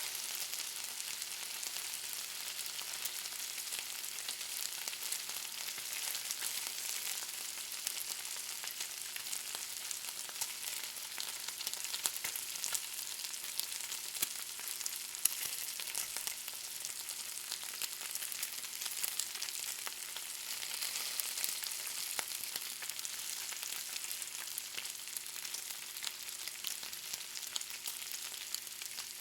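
Bacon frying: a steady high hiss of sizzling fat with constant small crackles and pops.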